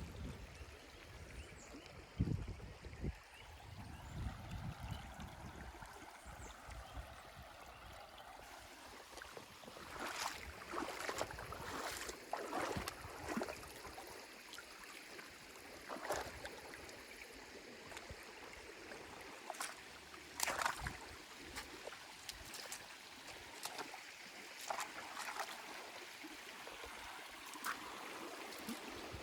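River water flowing, a steady faint rush, with scattered light knocks and rustles.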